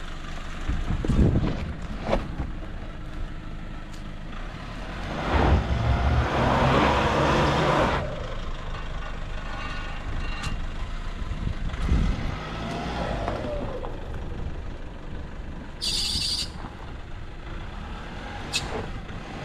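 Four-wheel-drive ute engine working under load as it climbs through deep, cross-axled ruts, rising in several surges of revs, with the tyres scrabbling in the dirt during the longest surge.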